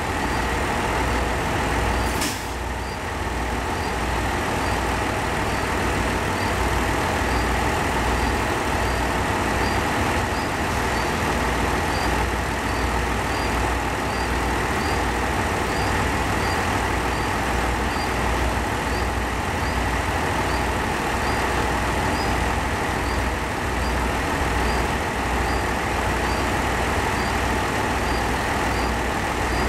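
Diesel railcar engine running steadily with a low throb, and a single sharp clank about two seconds in.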